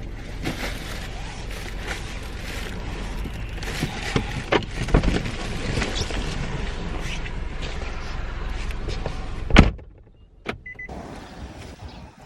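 Car interior noises: a steady low rumble with clicks and knocks as someone gets out. About nine and a half seconds in, a car door shuts with a loud thud, and the surroundings go quieter. About a second later comes a click and a short high beep.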